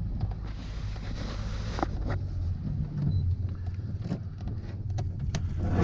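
Small boat's outboard motor idling with a steady low hum, under scattered clicks and knocks. A brief rush of noise comes about half a second in and lasts about a second.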